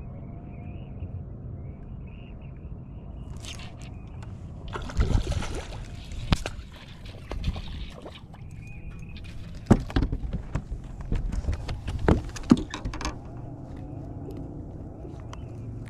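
A hooked crappie splashing at the water's surface about five seconds in as it is reeled to the boat. This is followed by a run of sharp knocks and thumps as it is lifted aboard.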